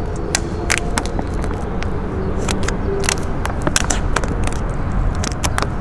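Squeegee scraping over vinyl wrap film as it is pressed onto a truck headlight, a run of short irregular scrapes and crackles. A steady low rumble runs underneath.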